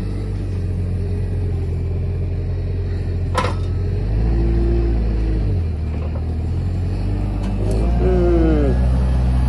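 Small wheel loader's engine running, its speed rising and falling as the forks work, with a sharp clank about three and a half seconds in and brief whines sliding down in pitch near the end.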